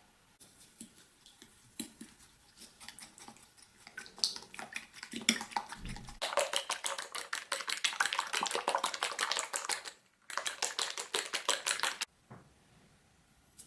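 A utensil stirring fast in a mixing bowl, clicking against its sides in quick even strokes, with a short break about ten seconds in, before stopping suddenly. Before that, lighter scattered taps and clinks.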